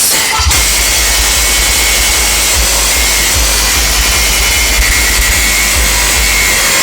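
Very loud, heavily distorted music blasting from a large DJ sound system: a dense, hissy wash over deep, pulsing bass thumps.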